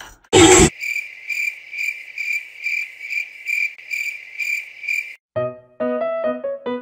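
A brief loud burst of noise, then a high cricket-like chirping that pulses about twice a second and stops suddenly about five seconds in. Piano-like music notes follow near the end.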